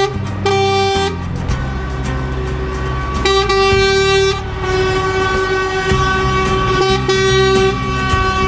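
Truck horns honking in repeated blasts, some short and some held for a second or more, over the low rumble of diesel lorry engines driving past.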